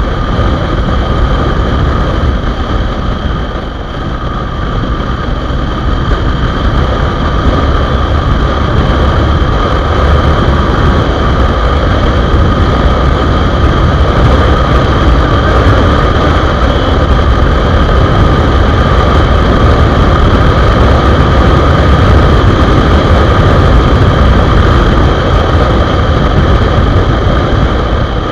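Honda Hornet 2.0 motorcycle ridden at speed: a steady engine drone under a heavy rush of wind on the rider's microphone, easing briefly about four seconds in. The engine has a newly replaced timing chain and adjuster.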